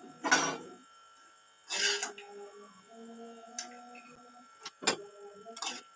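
Steel spoon scraping and stirring fried nuts around a steel frying pan in about five short strokes, the loudest about a quarter second in. A low buzzing hum comes and goes between the strokes.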